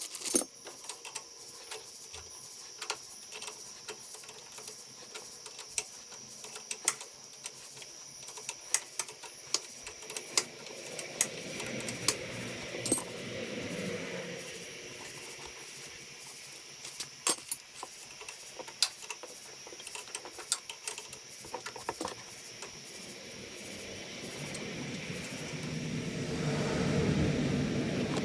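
Scattered metallic clinks and taps of hand tools and bolts being handled while working on a mower. A low rumble, like a passing vehicle, builds toward the end.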